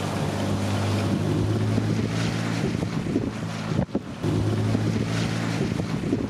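Wind rushing over the microphone, with the steady low hum of a moving vehicle underneath; the noise dips briefly about four seconds in.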